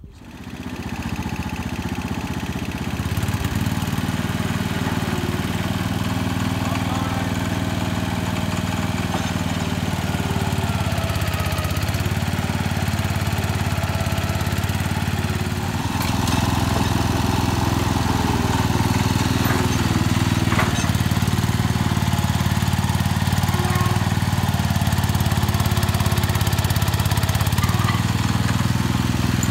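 Gravely 424 garden tractor engine running steadily, pulling harder and louder from about halfway through as the tractor climbs a ramp onto a trailer, with a sharp knock or two from metal.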